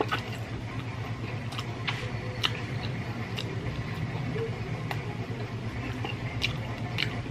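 Close-up chewing of roast chicken, with irregular wet mouth clicks and lip smacks, over a steady low hum.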